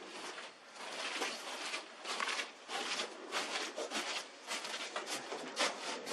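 Irregular scraping, rubbing and rustling from handling a water heater tank, a run of short noisy scrapes with no steady tone.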